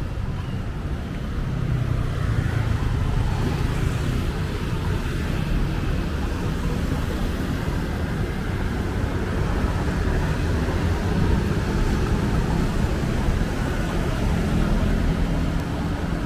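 Steady city street traffic noise: car and motorbike engines running and passing.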